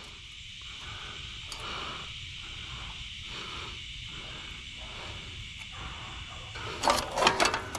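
Soft, rhythmic scraping of a wrench working loose the nut on a fan motor's wire guard grate, about two strokes a second, over a steady high insect chorus; a short burst of louder clinks near the end.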